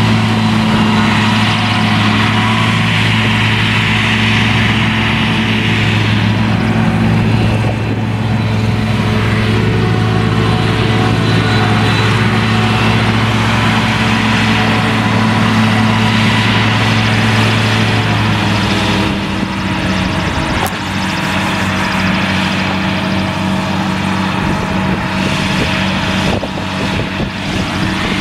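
Claas Jaguar 970 self-propelled forage harvester running under load while chopping triticale, with a tractor running alongside. It makes a loud, steady, deep engine drone with a rushing hiss above it, and the pitch of the drone shifts about two-thirds of the way through.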